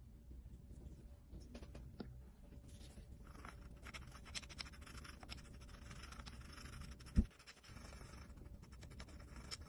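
Small tools scratching and clicking against watch parts during servicing: a dense run of fine scratches and light clicks, with one short dull knock about seven seconds in.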